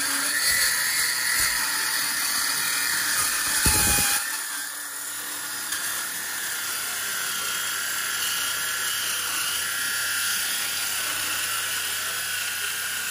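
Makita cordless circular saw with a Diablo Steel Demon 48-tooth cermet metal-cutting blade cutting through rectangular stainless steel tube, a steady high whine of the blade in the metal. A short low thump comes about four seconds in, after which the cutting goes on slightly quieter.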